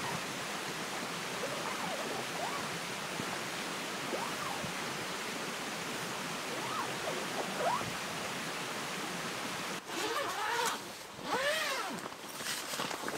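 Steady rush of a mountain stream, with a few faint chirps. About ten seconds in, the rush drops away and squeaks and crinkling rustles of plastic and fabric follow, as the tent's clear vinyl windows and groundsheet are handled.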